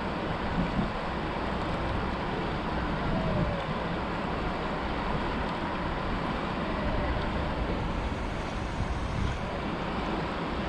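Steady rush of a fast-flowing river, with wind buffeting the microphone.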